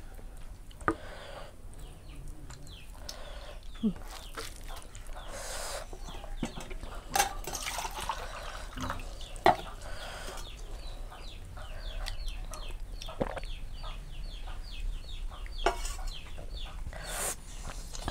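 Chickens clucking nearby, with a long run of quick, high chirps from about eight seconds in and a few sharp clicks, the loudest about halfway through.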